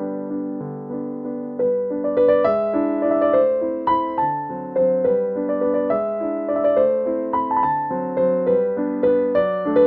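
Background piano music: a melody of notes, each struck and fading, changing about every half second.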